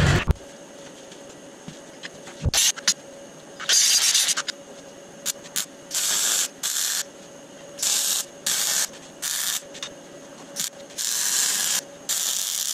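MIG welder laying a series of short welds and tacks on steel tube. About a dozen bursts of crackling hiss, each under a second, stop and start with brief pauses between them.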